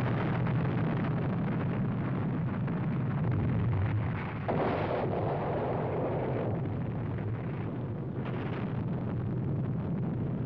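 The sound of an atomic bomb blast: a deep, continuous rumble that follows a sudden detonation, with a brief rise in hiss a little before the middle.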